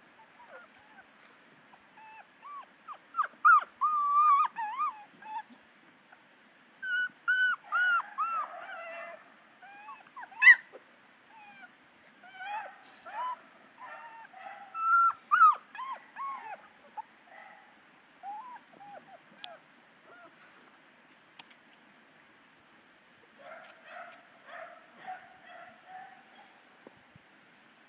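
Seven-week-old puppies whimpering and yipping in short, high, bending whines that come in bursts, with a lull of a few seconds before a last cluster near the end, over light clicks and rustles.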